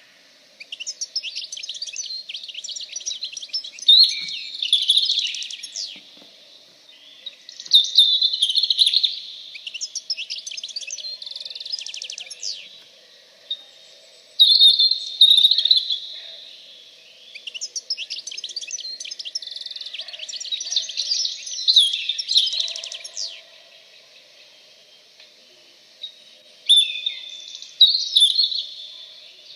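A songbird singing long phrases of rapid, high warbling notes and trills, each lasting a few seconds, with short pauses between them, about six phrases in all.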